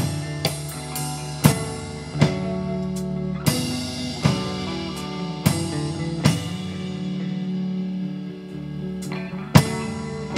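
Live rock band playing an instrumental passage: sustained guitar notes over a drum kit, with separate drum and cymbal hits and one heavy hit near the end.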